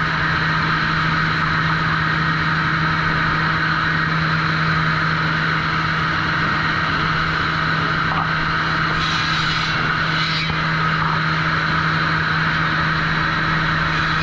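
Sawmill trim saw machinery running steadily: a constant motor hum over a loud mechanical rush, with a brief hiss about nine seconds in.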